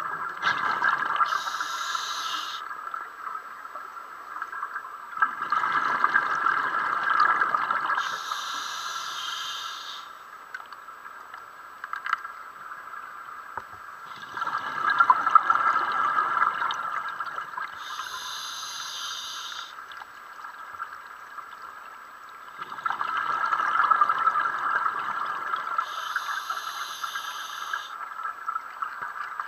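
A scuba diver breathing underwater through a regulator: three long bubbling exhalations, each followed right after by a short hissing inhalation, about every nine seconds. A steady faint hum runs underneath.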